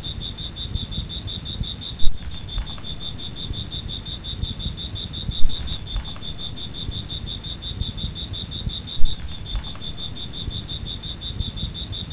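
An insect calling with a steady, high, pulsing trill of about six pulses a second, over a low rumble. Three sudden loud thumps come about two, five and a half and nine seconds in.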